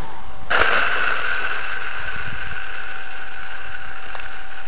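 Brushless electric motor of an RC model Cessna, throttled up suddenly about half a second in. It holds a steady high whine for the takeoff run.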